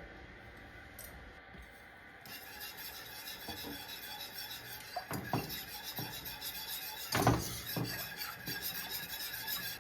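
A utensil stirring milk and condensed milk in a pot on the stove, a steady scraping against the pot with a few clinks; the loudest knock comes about seven seconds in.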